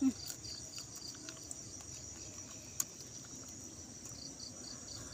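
Crickets and other insects: a steady high-pitched chorus, with trains of rapid chirps near the start and again near the end. A single sharp click sounds a little under three seconds in.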